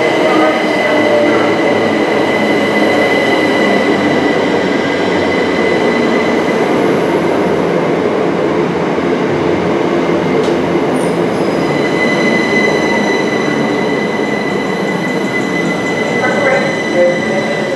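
A passenger train running through the station, a loud, steady rush and rumble of wheels on rail lasting the whole time. A thin high squeal or whine rides on top, dropping away in the middle and coming back for the last few seconds.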